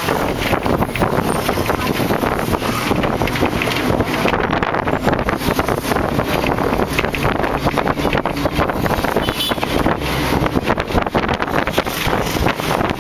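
Wind buffeting the microphone over the rumble of a moving vehicle, recorded at its open window.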